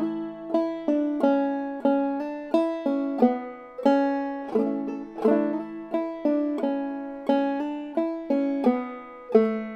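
Five-string banjo played clawhammer style, picking out a slow phrase of a fiddle tune note by note, about one and a half notes a second, each note ringing and fading. It is in standard G tuning capoed at the second fret.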